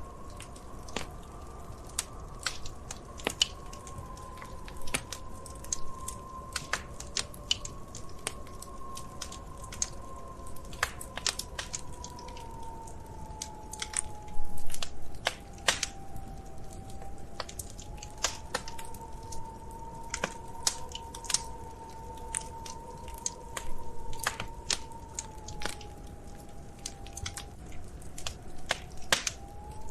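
Wood fire crackling in a fireplace: irregular sharp pops and snaps, with a denser, louder flurry of crackles about halfway through. A faint tone that slowly wavers in pitch runs underneath.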